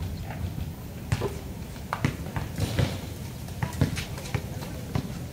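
Badminton rally: a string of sharp knocks from rackets striking the shuttlecock, mixed with footsteps on the court.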